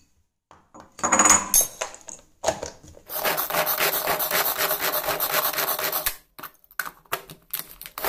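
Boiled chickpeas and kidney beans clattering into a plastic pull-cord hand chopper. About three seconds in, a fast, busy rattle starts as the cord is pulled again and again, the spinning blades knocking the beans against the bowl to mash them. A few more clicks and a short rattle come near the end.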